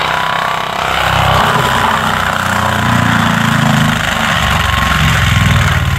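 Forestry mulcher running hard: the diesel engine works under load while the carbide-toothed mulching drum spins at speed, with a steady grinding rush over the engine note. The engine note swells and eases several times, about a second or two each.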